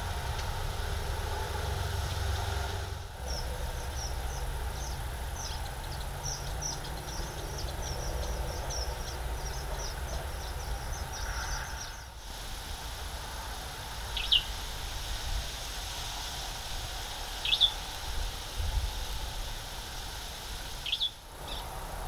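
Bird chirping over a steady low rumble: a fast run of short, high chirps for about eight seconds, then three single chirps a few seconds apart.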